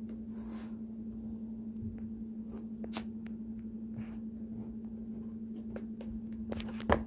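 A steady low hum with scattered small clicks and taps, and a louder knock just before the end.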